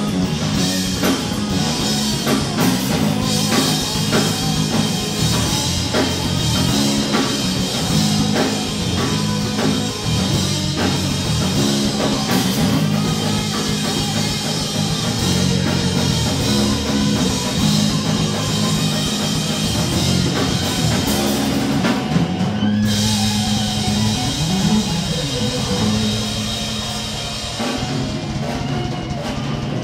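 Live punk rock band playing: electric guitar, bass guitar and drum kit. About two-thirds of the way through, the cymbals drop out for a few seconds while the guitars carry on.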